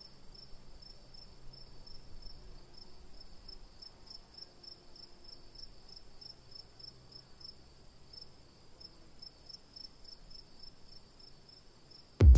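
Crickets chirping in an even rhythm, about three chirps a second, over a high steady insect trill. Music comes in abruptly at the very end.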